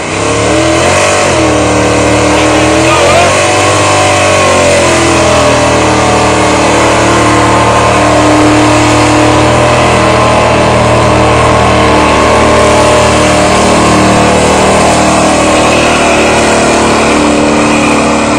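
Pulling truck's engine at full throttle under load. It revs up sharply at the start, its pitch wavers for a few seconds, then it holds steady at high revs.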